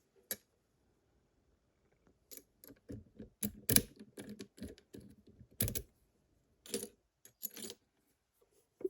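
Irregular small metallic clicks and rattles from a Vachette VIP lock and picking tools being handled, the loudest click a little under four seconds in.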